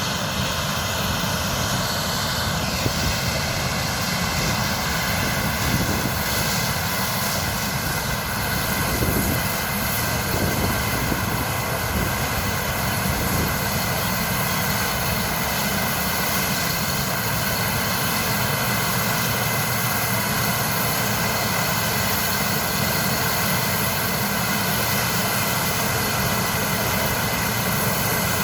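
A 175 hp corn harvester running steadily, a constant mechanical drone with a hum of high steady tones over it and no change in pace.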